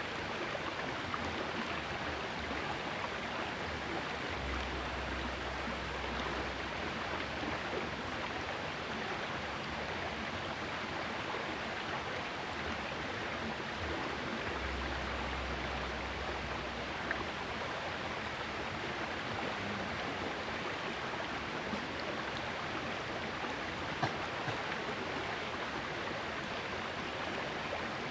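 Small river flowing: a steady rush of water, with a few faint clicks and twice a brief low rumble.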